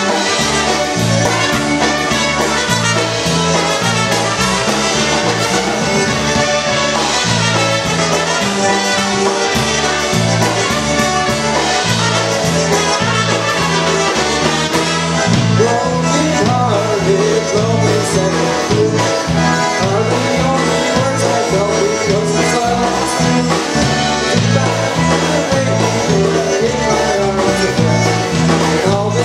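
Polka band playing live: trumpets and a concertina carrying the tune over bass guitar and drums, the bass alternating notes on a steady beat.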